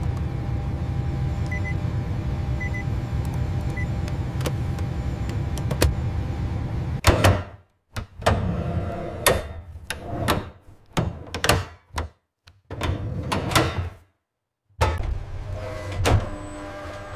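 Steady low machine hum, then from about seven seconds in a run of mechanical clicks and clunks broken by short gaps of dead silence, before the hum returns near the end.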